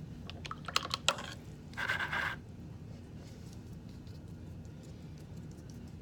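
Paintbrush work: a few sharp clicks in the first second, then a short scratchy scrub about two seconds in, followed by faint light taps as the brush dabs paint onto paper.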